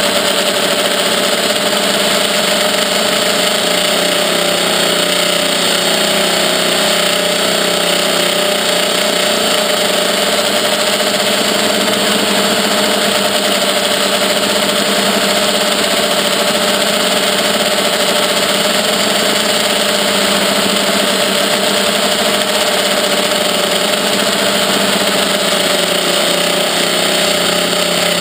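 Quadrixette 30 quadcopter's motors and propellers whining steadily in fast flight, heard from a camera carried on the craft, the whine wavering slightly in pitch as the throttle changes.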